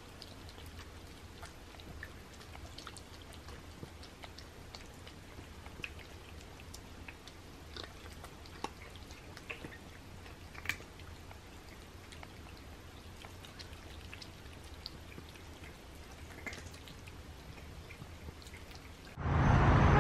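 Cats eating very wet food off ceramic plates: quiet, wet lapping and chewing with scattered small clicks. Near the end it cuts to a much louder, steady hum of outdoor traffic.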